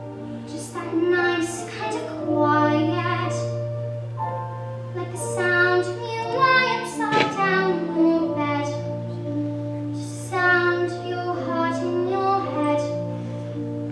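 A song: a child's voice singing slow, long-held notes without clear words over a steady low sustained note in the accompaniment.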